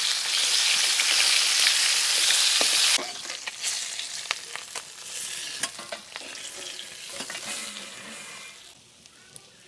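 Rohu fish-head pieces frying in hot mustard oil in a metal wok: a loud, steady sizzle that drops off suddenly about three seconds in. After that a quieter sizzle with clicks and scrapes of a metal spatula as the pieces are lifted out, fading away near the end.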